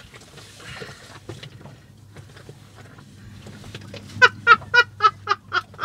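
A woman's short, pitched gasping cries, about seven in quick succession at roughly four a second, starting about four seconds in, as she lowers herself into cold sea water; the involuntary gasps of cold-water shock. Before them only faint rustling.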